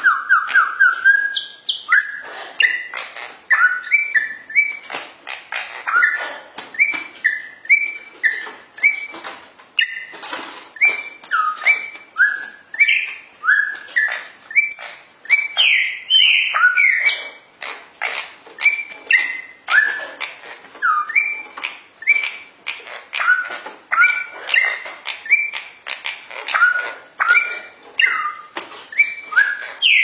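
A yellow-and-black songbird singing a long run of short whistled notes, each sliding up or down in pitch, about two a second. Sharp clicks come between the notes.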